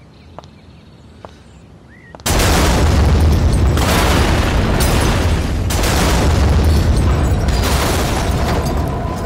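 A car explosion: a sudden loud blast about two seconds in, followed by a sustained deep rumble of the fireball with several surges. Faint bird chirps before the blast.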